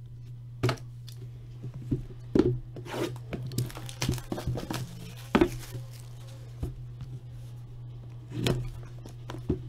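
Sealed hockey card box being unwrapped: the plastic wrap is torn off in short, irregular rips and crinkles, over a steady low hum.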